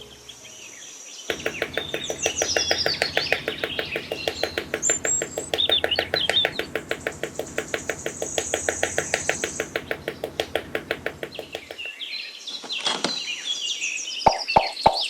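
Birds chirping, joined a little over a second in by a fast, even rattling pulse that stops about three seconds before the end. A few sharp clicks come near the very end.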